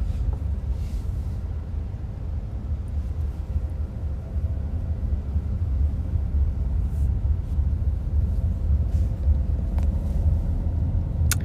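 Steady low rumble of road noise inside a moving passenger van's cabin, with one sharp click near the end.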